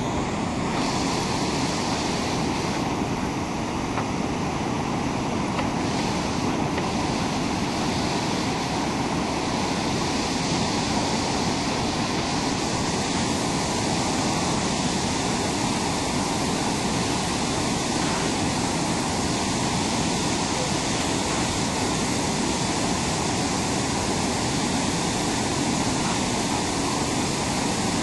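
Steady rush of whitewater pouring over a rocky creek cascade.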